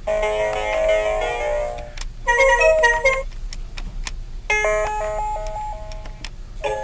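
Cisco IP Phone 7960G ringtones played one after another: short electronic melodies of clean, stepped notes. One tune ends about two seconds in, a brief one follows, and after a short pause another begins.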